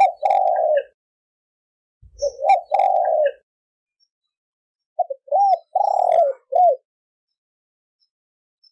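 Spotted dove cooing in the 'thổ kim' call style used as a lure call: three separate phrases a couple of seconds apart, each made of short swooping notes around one longer, held coo.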